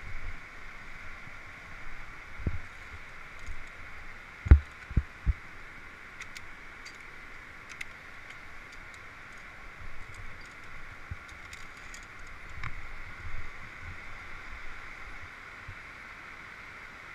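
Dull knocks and rubbing of climbing gear against a body-worn camera as the climber moves along a via ferrata, loudest a quick run of three knocks about four and a half seconds in. Faint light metallic clicks, typical of carabiners on the steel safety cable, come here and there over a steady hiss.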